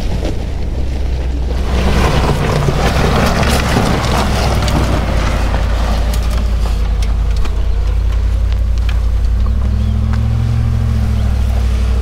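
Four-wheel-drive vehicle's engine running steadily at low speed, with a rush of noise from about two to five seconds in and scattered clicks. The engine revs up briefly and eases back near the end.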